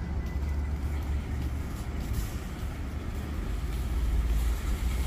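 Steady low rumble of traffic in a parking lot, swelling a little near the end.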